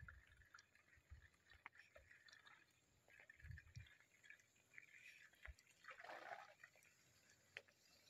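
Near silence: faint outdoor ambience with scattered soft ticks and clicks and a few dull low thumps.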